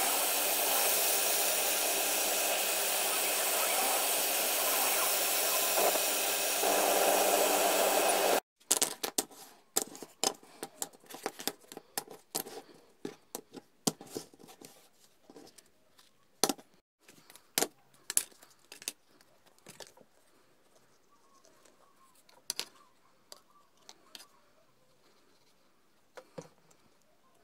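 Laser cutter running as it cuts thin plywood: a steady, loud whirring rush with a hum in it, which cuts off suddenly about eight seconds in. After that come scattered light clicks and taps as the thin laser-cut plywood parts are handled and fitted together.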